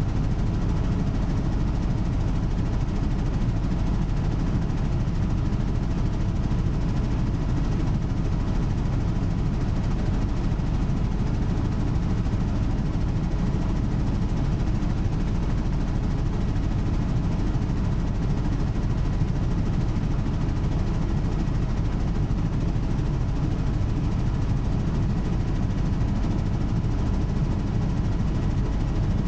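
Helicopter in cruise flight heard from inside the cockpit: steady, deep rotor and engine noise with a faint steady whine above it.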